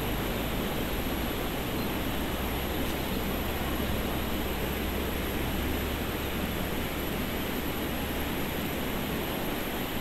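River water rushing, a steady even noise.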